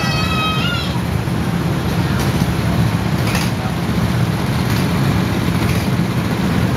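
Several go-kart engines idling together in the pit lane, a steady low drone. Near the start a short, high-pitched call or whistle sounds once and rises slightly before stopping.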